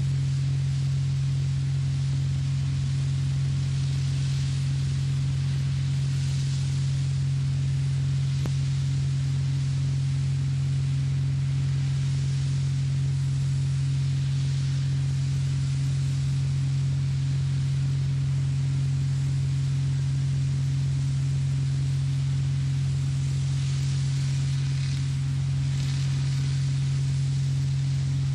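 Ultra-high-pressure water-blasting equipment running: a steady low drone with a faint high hiss that swells now and then.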